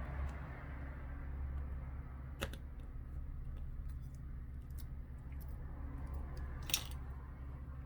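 Small clicks and taps of phone parts being handled and pressed together on a workbench, one sharper click about two and a half seconds in and the loudest near the end, over a steady low hum.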